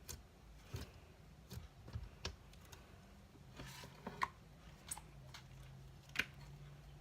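Homemade slime being squished and pressed by hand, giving faint, irregular clicks and pops; the sharpest pop comes about six seconds in.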